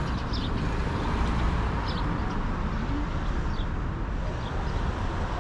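Downtown street ambience: a steady low rumble of city traffic, with a few short bird chirps above it.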